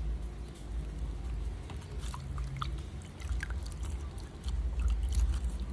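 Wet kite plastic being handled while a piece of adhesive tape is picked off it: soft crinkles and small scattered clicks over a steady low rumble.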